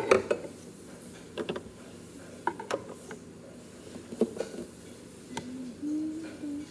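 Handling noise from a phone held close to the microphone: scattered clicks, taps and knocks, with a short low hum near the end.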